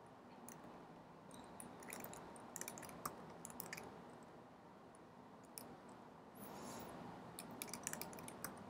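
Faint computer keyboard typing: scattered key clicks in short runs as commands are typed, with a brief soft hiss about six and a half seconds in.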